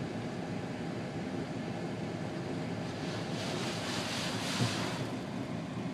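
Automatic car wash running, heard from inside the car's cabin: a steady rushing noise that swells for about two seconds midway, with a single thump near its peak.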